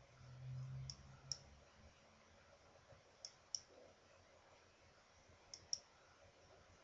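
Faint computer mouse clicks in quick pairs, three pairs about two seconds apart: chess pieces being picked up and dropped on an on-screen board.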